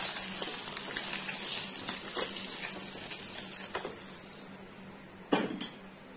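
Fish pieces sizzling as they fry in hot oil in a kadai, the sizzle fading away about four seconds in as the last golden-brown pieces are lifted out. A metal spatula clicks against the pan a few times, with a louder double clank near the end.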